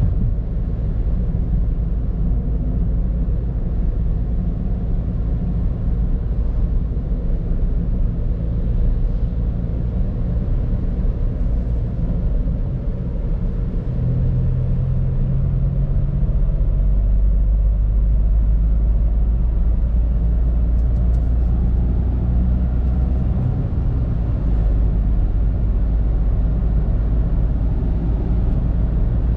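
Mitsubishi Space Star's 1.2 MIVEC three-cylinder petrol engine and tyre noise heard from inside the cabin while driving, a steady low drone. About halfway through, the engine note shifts and the drone grows louder.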